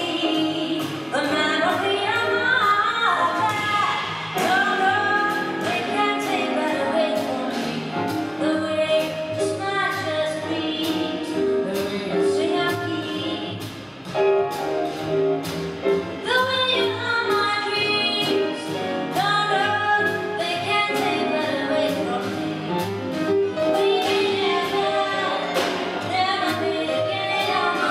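Live vocal jazz: a woman singing with a piano trio of piano, double bass and drums, cymbals ticking steadily underneath. The music dips briefly about fourteen seconds in.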